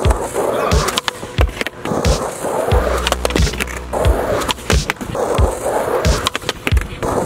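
Skateboard wheels rolling on concrete under a background music track with a steady beat.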